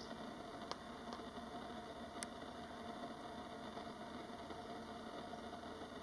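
Faint steady background hiss with a few short, sharp clicks, the loudest about two seconds in.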